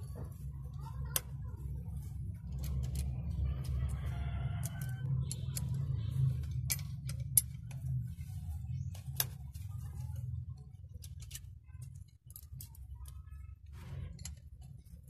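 A steel wrench clicking and clinking against the fuel injection pipe nuts of an Isuzu 4HG1 diesel engine as the pipes are undone. The sharp metallic ticks come at irregular intervals over a steady low hum.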